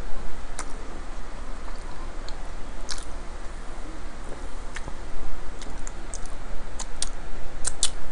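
Close-up chewing of a mouthful of pizza, with irregular sharp crunches and mouth clicks, several in quick succession near the end.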